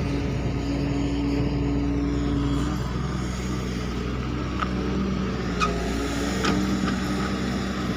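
Excavator diesel engine running steadily, with a few sharp clinks and knocks in the second half.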